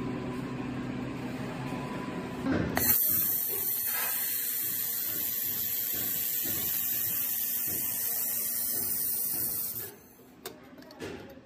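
Handheld fiber laser welder running a wire-fed weld on stainless steel: a steady high-pitched hiss that starts suddenly about three seconds in and cuts off about seven seconds later.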